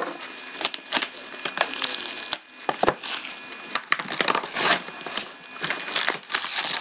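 A cardboard trading-card box being handled and opened by hand, with its wrapped card packs pulled out: irregular crackling, rustling and small clicks of cardboard and wrappers.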